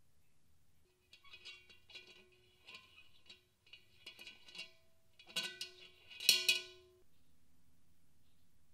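Rusty wire bail handle of a cast iron pot knocking and rattling against the pot's ears: a run of metal clinks, each ringing briefly at the same pitch, loudest about two thirds of the way in.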